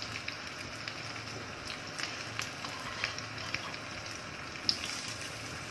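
Breaded potato-egg cutlets deep-frying in hot oil in a small kadai: a steady sizzle with scattered crackles and pops, and one sharper click near the end.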